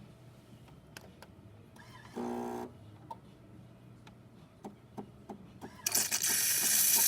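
Jura Impressa J6 super-automatic espresso machine starting its steam wand: a few light clicks and a short hum, then about six seconds in a loud, steady hiss of steam comes on.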